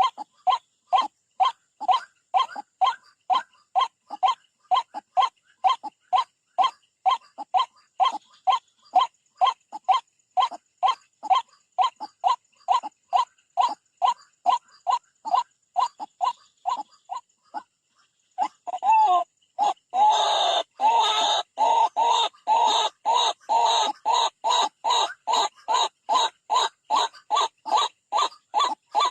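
White-breasted waterhen (ruak-ruak) calling, a steady string of short harsh notes about two to three a second. After a brief pause about two-thirds of the way through, the calls resume louder and harsher.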